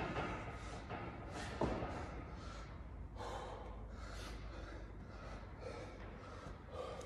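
A person breathing hard in repeated heavy breaths, winded from exercise, with a single sharp thud about a second and a half in.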